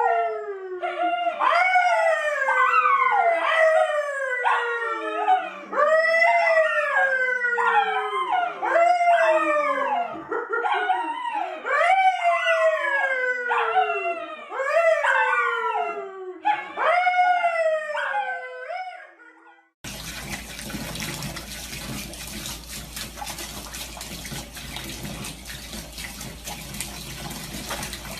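A dog howling over and over, each howl rising and then sliding down in pitch. After about 20 seconds this stops abruptly and gives way to a steady rushing noise like running water.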